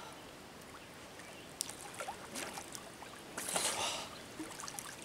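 Lake water splashing and sloshing around a person swimming: a few small splashes and drips, then a louder splash past the middle.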